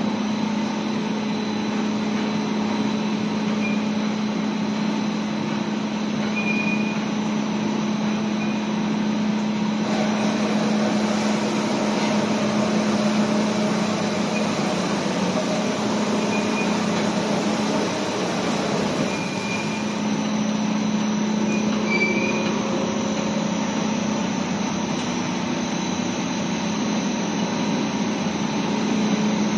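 Steady running noise of a 15-ton-per-hour biomass-fired steam boiler plant: a constant low hum under a wide rush of machine noise, with a few faint short high chirps.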